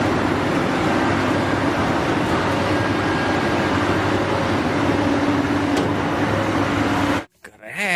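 Caterpillar 6015B hydraulic mining excavator working, a loud steady machine noise with a low hum, as it tips sand from its bucket into a dump truck. The sound cuts off suddenly near the end.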